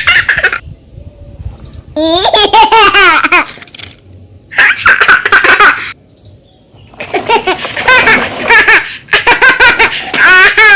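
High-pitched, baby-like laughter in repeated bursts of one to two seconds with short pauses between them, of the kind used as a cartoon sound effect.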